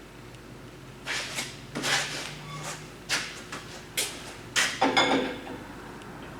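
Metal parts knocking and scraping: about five short clunks a second or so apart, the loudest cluster about five seconds in.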